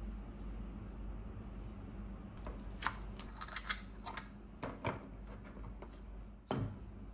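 Frozen baby-food cubes being knocked out of a plastic freezer tray into a ceramic bowl: a run of sharp plastic clicks and knocks, then one heavier knock near the end, over a low steady hum.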